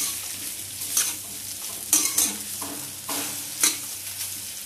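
Metal spoon stirring and scraping boiled potatoes in a steel kadai, knocking against the pan about once a second, over a steady sizzle of frying.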